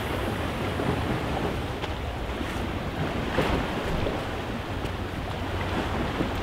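Wind buffeting the microphone over waves washing against the shore, with a few clicks between two and four seconds in.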